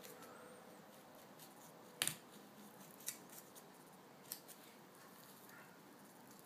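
Faint knife work on a pork shoulder: a knife cutting and scraping along the shoulder blade bone, with a few sharp clicks, the loudest about two seconds in.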